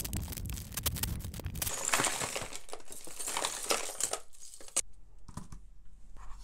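Plastic bag crinkling and a mass of metal costume jewelry clinking and jangling as a bag of mixed jewelry is torn open and emptied. The sound cuts off suddenly about three-quarters of the way through, leaving only a few light clicks.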